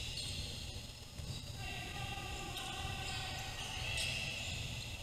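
Game sounds in a gym: a basketball bouncing on the court under the mixed voices of players and spectators, over a steady low hum.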